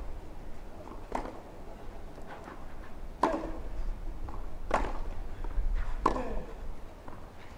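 Tennis ball struck by racquets in a baseline rally on a clay court: four sharp pocks, about one every second and a half.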